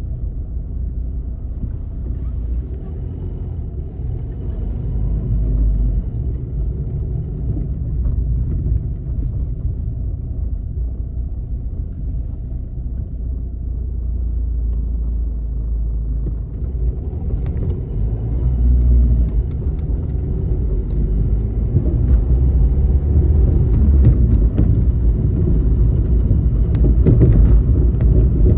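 Low, steady rumble of a car driving in city traffic, heard from inside the car. It grows louder and fuller from about seventeen seconds in.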